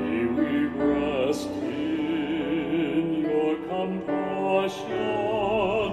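A solo voice singing a slow hymn phrase, with long held notes and wide vibrato, over a sustained instrumental accompaniment.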